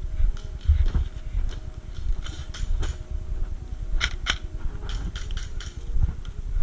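Low wind rumble on the microphone with a scatter of sharp clicks and snaps, most of them in the middle, the two loudest close together about four seconds in.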